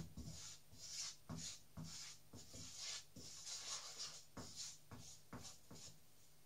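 Wooden spatula stirring and scraping flour and olive oil in a non-stick frying pan as the roux fries: a run of faint, irregular scraping strokes with a few light knocks.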